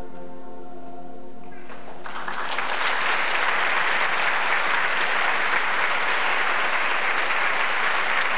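A children's choir holds a final sung chord that fades away, and about two seconds in an audience breaks into applause that carries on steadily.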